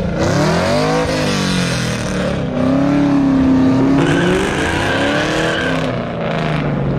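A car engine revving up and down several times. A steady high squeal, typical of tyres, comes in about four seconds in and holds for about two seconds.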